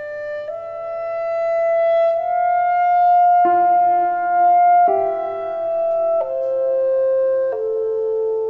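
Clarinet and grand piano playing a slow, lyrical classical duo: the clarinet holds long notes that step from one pitch to the next, while piano chords are struck about every second and a half in the second half.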